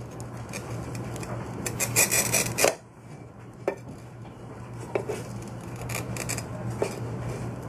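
Glass-cutter wheel scoring a square glass bottle as the bottle is pressed and turned against it in a wooden jig: a steady scratchy rasp, louder for about a second around two seconds in, with a few sharp ticks later on.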